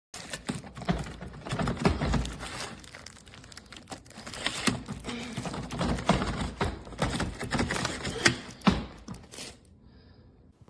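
Handling noise: irregular clicks, knocks and plastic crinkling as things are moved about by hand, with a few sharper knocks. It dies away near the end.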